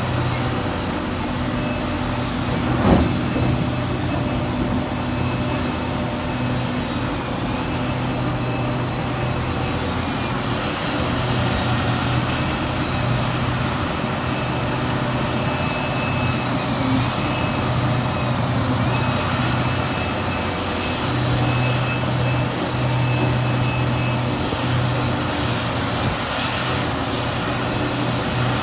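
Liebherr 976 crawler excavator's diesel engine running under working load as it digs and swings, rising and easing with the work, with a thin high whine above it. A single sharp knock about three seconds in.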